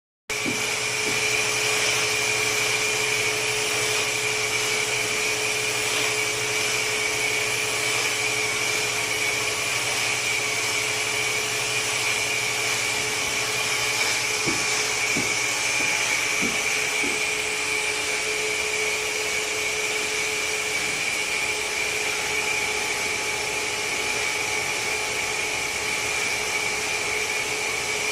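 Automatic mortar spraying machine running: a steady whirring hiss with a constant whine, and a few faint knocks about halfway through.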